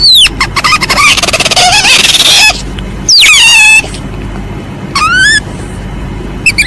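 Civet lure calls: loud, high squeals that fall steeply in pitch. A fast run of chattering squeals fills the first two and a half seconds, a long falling squeal comes a little after three seconds, and shorter squeals follow near five seconds and at the end. The recording is loud enough to clip.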